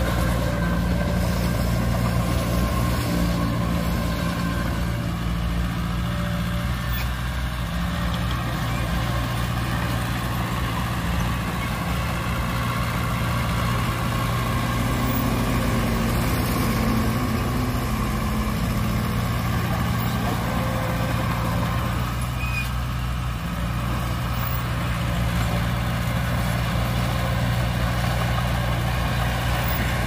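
Small crawler bulldozer's diesel engine running steadily under load as it pushes red soil, with the engine note shifting briefly around the middle.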